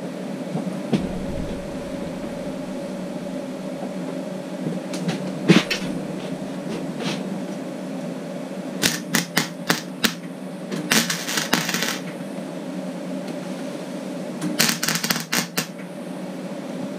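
MIG welder laying short tack welds on the truck door's thin sheet metal: several brief crackling bursts of a second or less, a little at a time, over a steady low hum.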